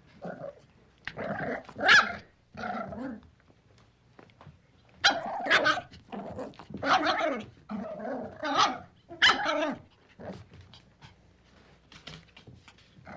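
Puppy barking and growling in short bursts: a few barks in the first few seconds, then a quicker flurry in the middle, tailing off to faint sounds near the end.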